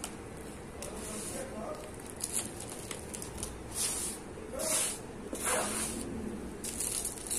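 A hand sweeping and swishing through dry, crumbled sand-and-cement powder on a smooth surface. Each stroke is a short gritty hiss, coming about once a second.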